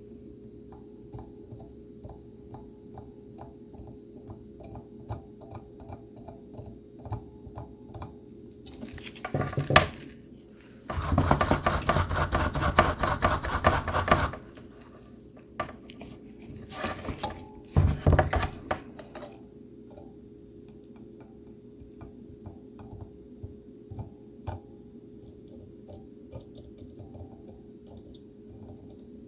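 Small metal tools clicking and tapping during soldering work on a circuit board, over a steady low hum. Loud bursts of metallic scraping and rubbing come about nine seconds in, from about eleven to fourteen seconds, and again near eighteen seconds.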